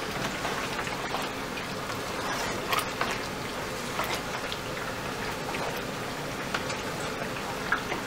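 Pumpkin stew sizzling steadily in a pot on low heat while a wooden spoon stirs it, with a few sharp knocks of the spoon against the pot.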